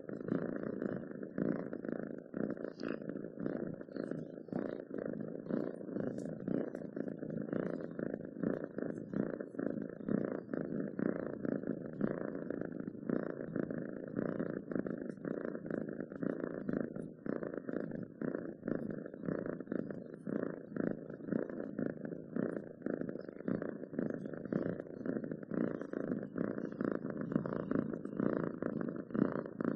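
Domestic cat purring steadily, a continuous rapid fluttering rumble.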